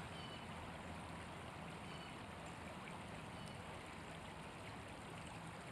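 Faint, steady rush of a small creek's current flowing over a shallow riffle.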